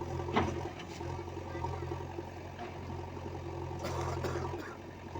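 Heavy machine's engine running steadily at low revs, with a sharp knock about half a second in and a few clatters near the end.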